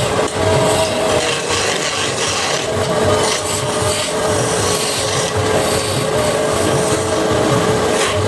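Wood being rubbed or rasped with an abrasive tool, continuously, over a steady machine hum.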